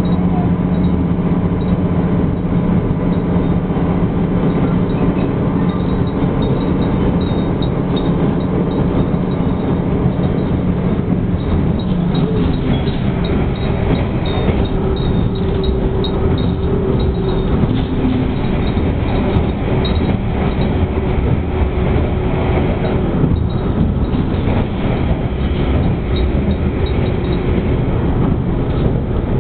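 Diesel railcar running along the line, heard from inside the passenger cabin: a steady engine drone over wheel and rail noise. The engine note shifts about twelve seconds in.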